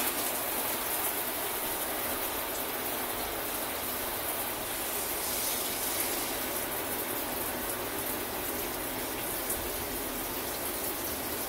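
Hand-held shower head spraying a steady stream of water into a shower stall. Hot water is being run through the line to purge air left after the water heater was refilled.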